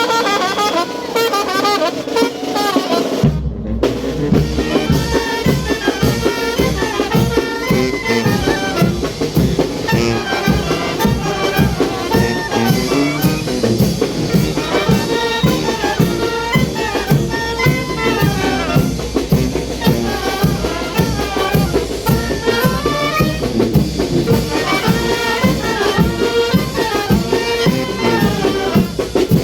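Mexican brass band (banda de viento) playing chinelo dance music: trumpets and other brass carry the melody over a steady, driving drum beat. The bass drum and low brass come in about three seconds in.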